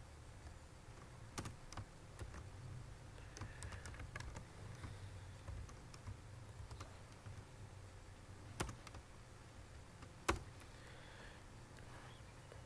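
Computer keyboard typing: sparse, faint keystrokes, with two louder key strikes about a second and a half apart near the end.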